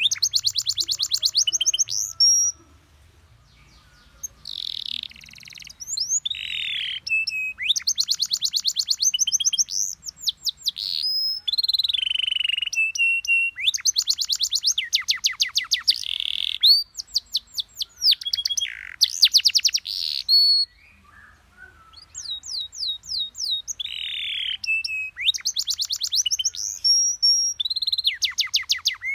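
Domestic canary singing a long, varied song: fast trills of rapidly repeated rising notes alternate with sliding, falling whistled notes. It pauses briefly twice, a little over two seconds in and about two-thirds of the way through.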